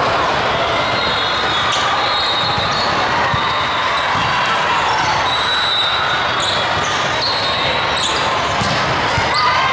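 Din of a volleyball tournament hall: volleyballs being hit and bouncing on the courts, with repeated sharp smacks over a steady background of voices and short high shoe squeaks.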